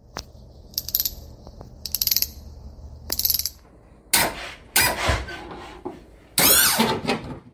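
Intro sound effects for a neon-sign logo: a low electrical hum with three short crackling buzzes, like a neon tube flickering on, then three louder whooshing hits, the last and loudest one sweeping in pitch.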